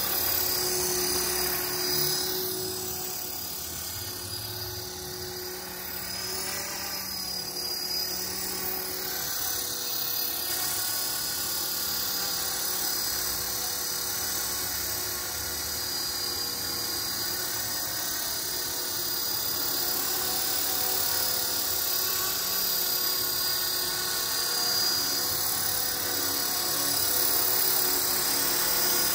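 Esky Belt CP electric RC helicopter with Align carbon main blades flying: a steady high whine from the electric motor and gears over the whir of the spinning rotors. It gets quieter a few seconds in as the helicopter moves away and grows louder again near the end as it comes back close.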